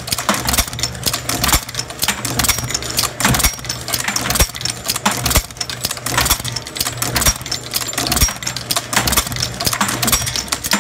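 Camdex brass processing machine running, its tool head stroking about once a second while .45 brass cases clink and rattle through the die stations over a steady motor hum. It is decapping and sizing the brass and picking out the small-primer cases.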